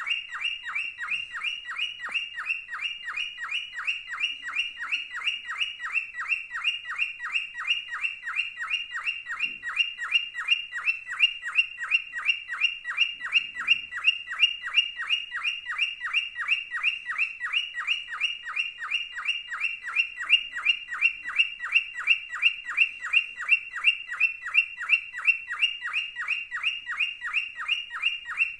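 Male cockatiel chirping in a fast, unbroken series of short, evenly spaced chirps, about three to four a second.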